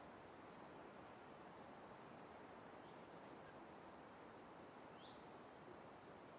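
Near silence: faint outdoor background hiss with a small bird giving a few short, high trilled calls, about one every couple of seconds.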